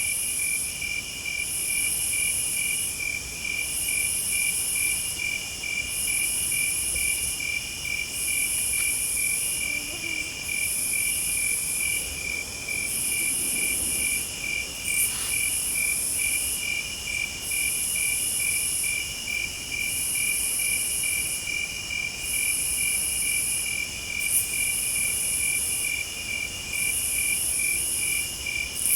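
Night insect chorus: crickets chirping steadily in a fast, even pulse, over a higher insect buzz that swells and stops about every one and a half seconds.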